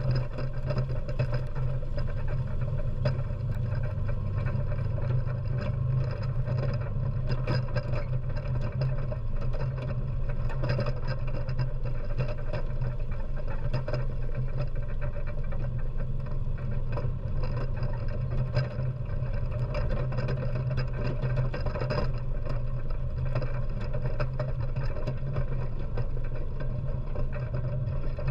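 ATV engine running steadily as the quad drives across rough dirt: a constant low hum, with frequent small clicks and rattles over it.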